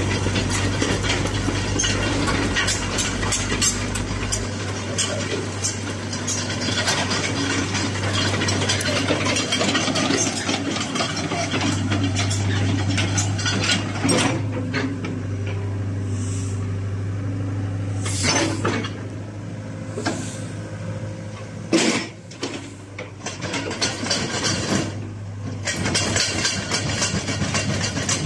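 Hitachi ZX60 mini excavator's diesel engine running steadily, with a busy clatter of mechanical clicks and knocks over it. A few louder sharp knocks come in the second half.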